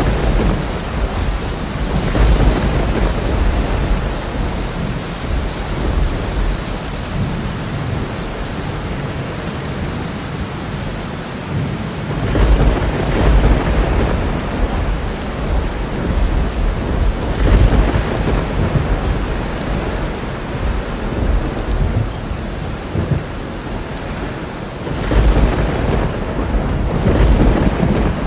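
Thunderstorm: steady heavy rain with rolling thunder, several rumbles swelling and fading, the strongest about 12 seconds in, around 17 seconds and near the end.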